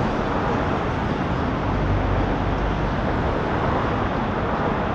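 Steady highway traffic noise: a continuous rush of passing vehicles with a low rumble underneath.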